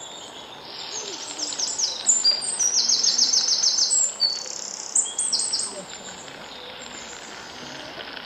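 A songbird singing a run of quick, high chirps that starts about a second in, is loudest in the middle and fades out after about six seconds.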